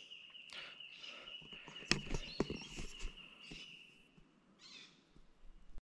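Quiet bushland ambience: a steady high-pitched drone with scattered rustling and one sharp click about two seconds in. The sound cuts off abruptly shortly before the end.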